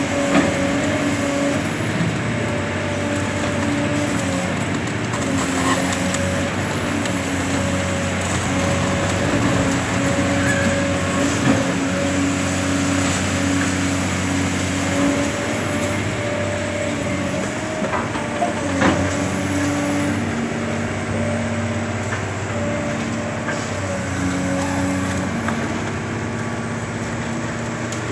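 Caterpillar high-reach demolition excavator working under load: diesel engine and hydraulic pump running steadily, with a whine whose pitch steps up and down as the hydraulics are worked. A few sharp cracks of concrete break under the crusher jaws around the middle.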